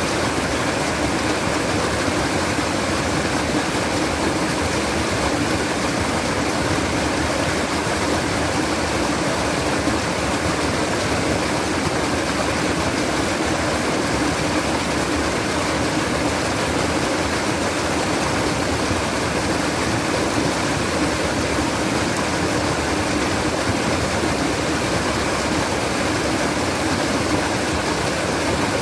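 Steady trickling of flowing water, continuous and unchanging.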